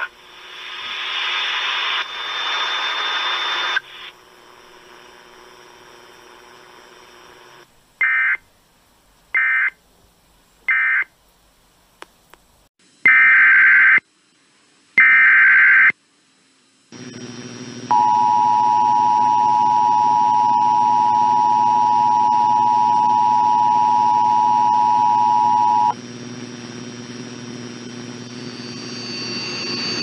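Emergency Alert System broadcast tones heard through a radio. A few seconds of static hiss, then three short screeches of digital SAME data that close the previous alert. Then two longer data screeches that open the next alert, and the steady two-tone EAS attention signal held for about eight seconds.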